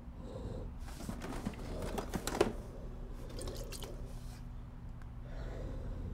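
Small clicks and rustles from bottles being handled over a cardboard box, with a sharp click about two and a half seconds in, over a steady low hum.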